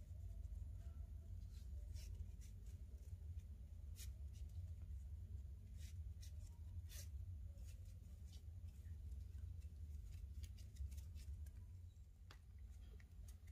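Paracord being worked into a knot by hand: faint, scattered scratchy clicks and rustles as the cord slides through fingers and is pulled tight, over a steady low hum.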